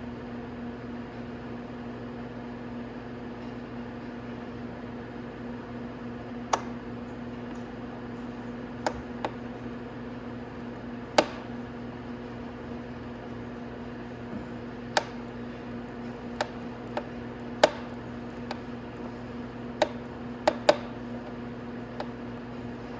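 A steady low electrical hum, with scattered sharp clicks and taps of hand tools against the motorcycle's plastic fairing as a small screw is worked out, about ten of them, the loudest near the middle and toward the end.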